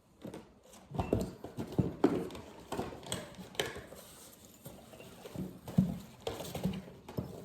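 A reed diffuser and its packaging being handled and unpacked by hand: irregular knocks, taps and rustles.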